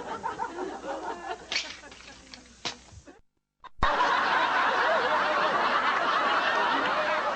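Sitcom studio audience laughing, dying away with a couple of sharp clicks. It cuts off suddenly to silence about three seconds in, then a loud, steady crowd sound starts.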